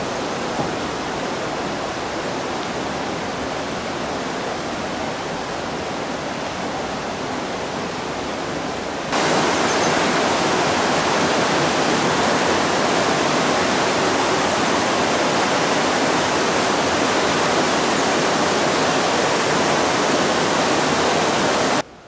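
Steady rush of a mountain river flowing through the town. It jumps louder and brighter about nine seconds in.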